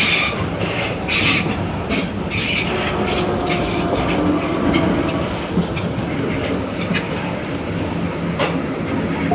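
Hamburg U-Bahn DT3-E train running, with repeated clicks and clatter from the wheels over rail joints and a brief motor whine a few seconds in.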